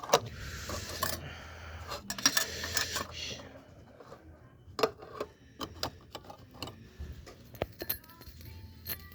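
Scattered light metallic clicks and clinks from metal fidget spinners being handled, with two short bursts of hiss in the first three seconds.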